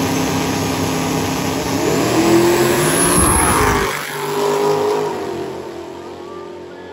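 Drag race cars running a pass at full throttle, engines rising in pitch and loudest about two to three seconds in. The deep low end cuts off suddenly near four seconds in, leaving a quieter engine drone.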